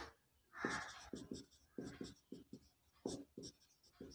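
Marker pen writing on a whiteboard: a run of short, faint strokes as letters are written one after another.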